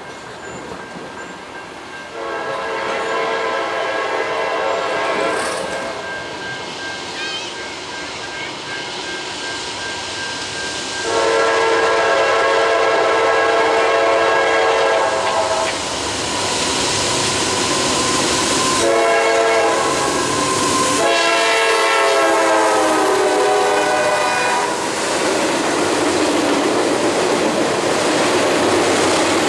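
Freight locomotive's multi-chime air horn blowing a series of blasts as it nears: two long ones, then a quicker long, short, long group. The train then rolls past close by, its wheels clattering over the rail joints.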